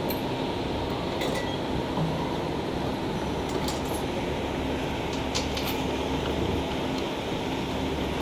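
Steady machinery hum and hiss, with a few light metal clinks as the can seamer's metal tooling plate is handled and fitted.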